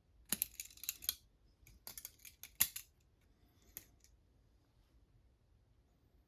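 Wander Paim balisong (butterfly knife) being handled: quick runs of sharp metallic clicks as the handles swing and knock together, in two clusters over the first three seconds and one more click about four seconds in.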